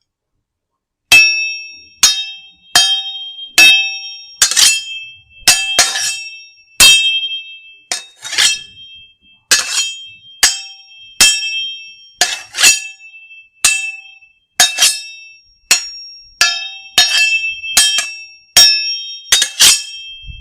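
A series of sharp metallic clinks, about one every 0.7 s, each ringing briefly with a bell-like tone. The tone shifts from strike to strike. They begin about a second in and stop abruptly.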